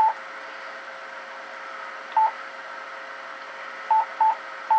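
Short electronic key beeps from a Yaesu transceiver, all at one pitch, as its controls are set: five beeps, irregularly spaced, with three in quick succession near the end, over a steady faint hum.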